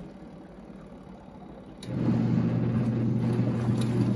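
Costway portable washing machine's motor starts about two seconds in after a click, then runs with a steady low hum while it agitates the laundry in water.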